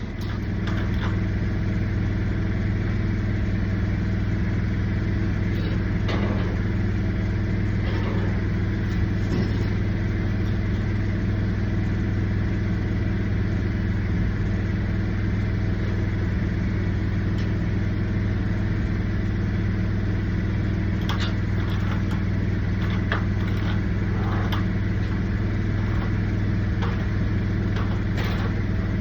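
A small engine running steadily at a constant speed, with a few light knocks over it.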